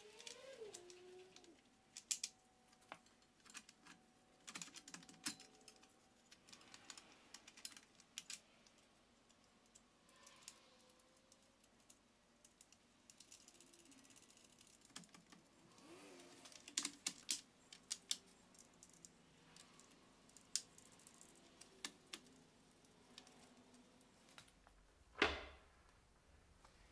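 Scattered light clicks and taps of iron wagon brake fittings and bolts being handled and fitted by hand, with a few faint squeaks and one sharper clack near the end.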